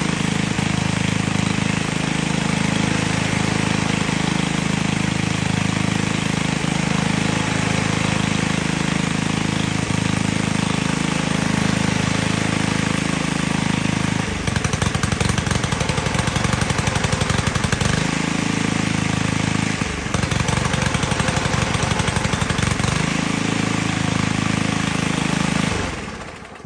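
Cub Cadet WST 100 string trimmer's engine running steadily, then about halfway through it starts stumbling and missing in rapid uneven stutters, steadies twice, and dies near the end. It is running rich and loading up, which the owner puts down to a gasoline-soaked air filter.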